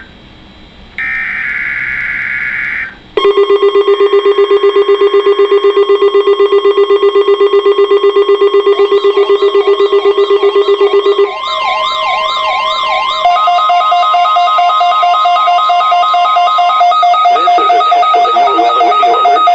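Emergency Alert System test tones from a weather radio broadcast. A last screeching burst of digital header data comes first. About three seconds in, a loud, rapidly pulsing low alarm tone takes over, and after about eight more seconds it gives way to warbling and beeping alarm tones that stop shortly before the end.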